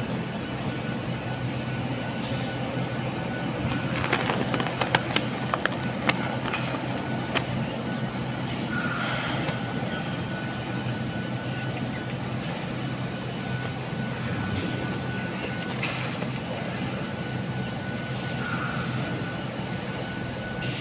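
Steady low mechanical hum of distant machinery with a faint high whine, and a few sharp clicks between about four and seven seconds in.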